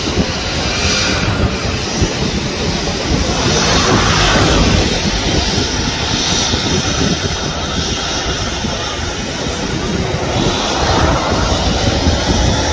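Airbus A320 airliner's twin jet engines running as it rolls onto the runway for takeoff, a continuous engine noise that swells about four seconds in and again near the end.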